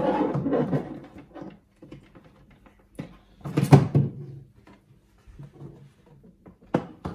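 Rustling and knocking of an aquarium filter hose being pulled through from the back and handled inside the aquarium's base cabinet, in two main bursts, about the first second and again near four seconds in, with a few sharp knocks near the end.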